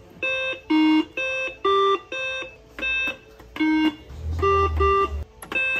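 Simon-style electronic memory game beeping out a sequence of about ten short electronic tones, each about a third of a second long, jumping between a few different pitches.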